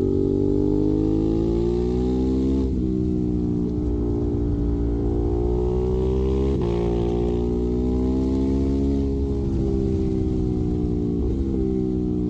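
Ducati Monster 821's 821 cc L-twin engine running through a Termignoni exhaust, its pitch climbing and falling over several seconds, with three abrupt breaks in the note.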